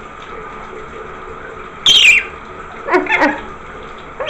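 Rainbow lorikeet calling: a short, loud, shrill screech about two seconds in, then a quicker chattering call a second later.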